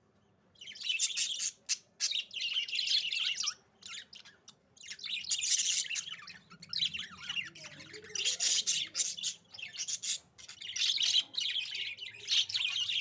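Pet budgerigars chirping and chattering in a steady run of quick, high chirps that come in spells of a second or two with short pauses between.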